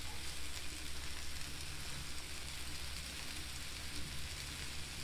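Diced potatoes and sweet potatoes sizzling steadily as they fry on a Camp Chef flat-top griddle, a fine crackling hiss with a steady low hum underneath.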